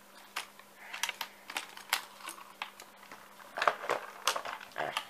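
Clear plastic tackle box being handled and its lid closed: irregular light plastic clicks and taps, with a quick cluster of them a little past three and a half seconds in.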